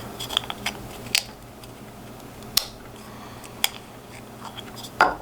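Scattered sharp clicks and taps of a 3D-printed snap ring jig and its shaft being handled, about six in all, the loudest about two and a half seconds in and near the end.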